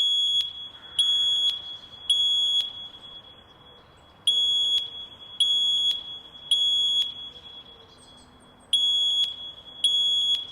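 Fire alarm sounding the temporal-three evacuation signal: three high-pitched beeps about a second apart, a pause, then three more, repeating. This is the standard pattern that signals a building evacuation.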